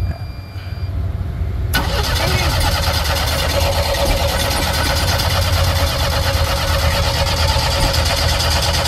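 A vehicle engine catches about two seconds in and then runs loud and steady, over a low steady rumble.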